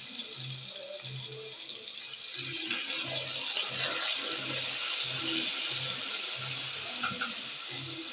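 Garlic sizzling in hot oil in a stainless steel pot, a steady frying hiss that gets louder about two and a half seconds in.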